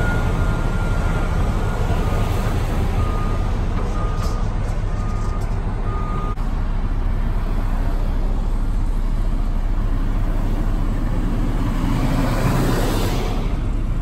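Road traffic, a dump truck and cars, passing steadily with engine and tyre noise. A reversing alarm beeps over it through the first six seconds, and another vehicle goes by close near the end.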